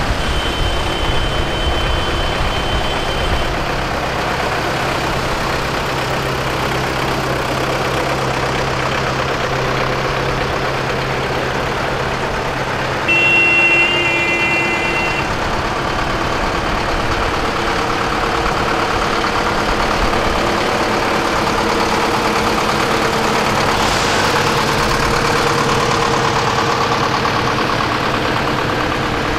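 A column of farm tractors driving slowly past, their diesel engines running steadily. A horn sounds once for about two seconds near the middle, the loudest moment, with a fainter held horn-like tone near the start.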